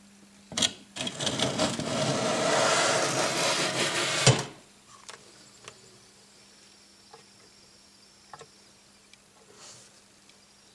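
A loud scraping rasp lasting about three seconds, set off by a click and cut off by a sharp knock. After it come a few faint ticks over a steady low hum.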